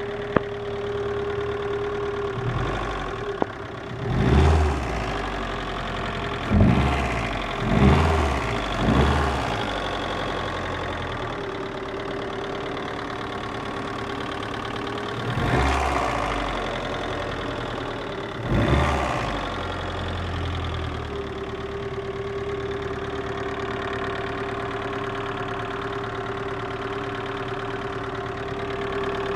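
VAZ-2112 1.6-litre 16-valve four-cylinder engine idling with a knock, blipped up in short revs six times, four of them close together in the first ten seconds and two more further on. The knock appeared after the cylinder head gasket was replaced.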